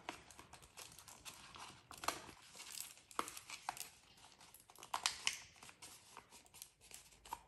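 A used paper envelope being handled and pushed open into a small pouch shape, its paper crinkling and rustling irregularly, with a few sharper crackles.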